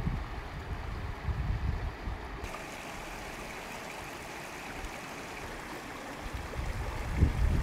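Mountain creek rushing over rocks, a steady wash of flowing water, with low rumbles of wind on the microphone now and then, strongest near the end.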